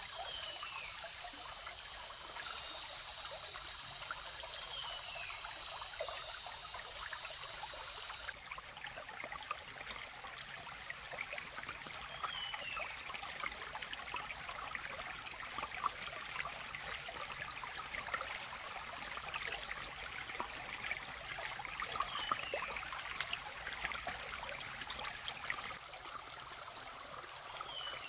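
Stream water trickling and splashing steadily over stones, a busy crackling patter.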